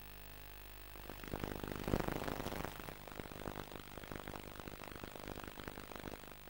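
Audio track of a VHS tape recording before the programme starts: a low electrical hum, then from about a second in a rough, irregular crackling noise that is loudest a second later and fades to a thinner crackle.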